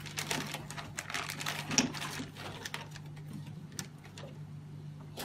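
Handling noises: a run of clicks and rustles, the loudest a sharp click just under two seconds in, thinning to a few scattered ticks, over a steady low hum.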